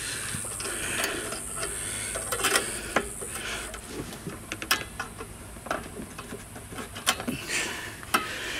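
Fingers working a short piece of stiff wire onto a lawn mower's engine control bracket: scattered light metal clicks, taps and scraping. The wire is a makeshift link to hold the kill switch off.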